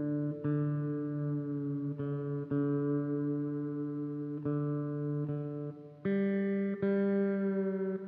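Guitar being tuned: one string plucked again and again and left to ring, then a higher string plucked the same way from about six seconds in.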